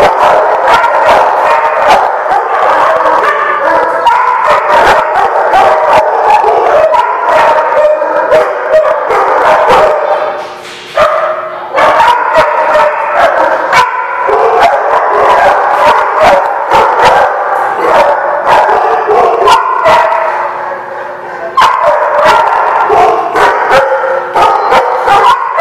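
Dogs barking and yipping in play, loud and almost without pause, with two short lulls about ten and twenty seconds in.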